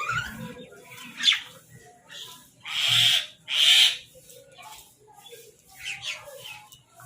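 Crows calling: a short sharp call about a second in, then two loud, hoarse caws in quick succession around three seconds in, with quieter calls around them.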